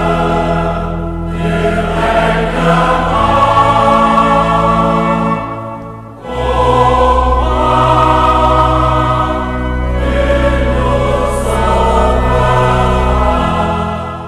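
Choir singing sacred music in long sustained chords over low held notes, in phrases with short breaks between them, fading out at the end.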